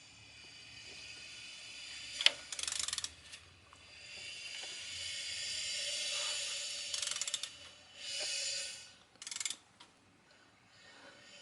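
A ratchet wrench turning a BMW M44 engine over by hand to watch the timing chain: the pawl clicks in short rapid bursts on the return strokes, with a sharp click about two seconds in and a longer rasping stretch in the middle.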